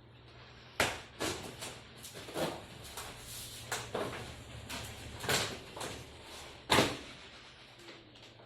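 A string of sharp knocks and clatters at irregular intervals, about eight in all, the loudest about a second in and another near the end.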